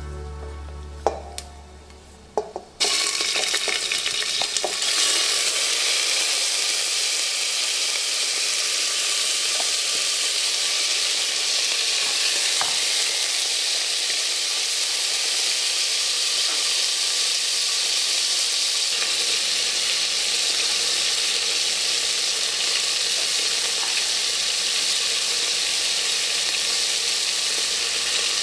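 Food sizzling as it fries in hot oil in a pan, starting suddenly about three seconds in and then going on steadily. A few light clicks come just before it starts.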